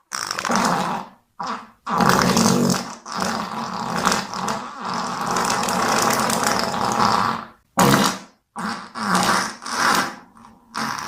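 A fart sound effect: a couple of short farts, then a long, drawn-out one of about five seconds, then a string of shorter ones near the end.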